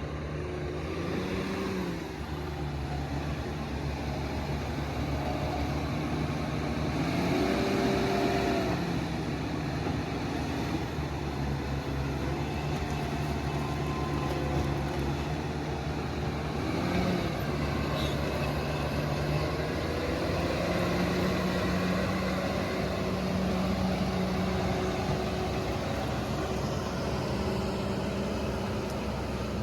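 Diesel engine of heavy logging machinery running steadily under load, revving up and easing back several times.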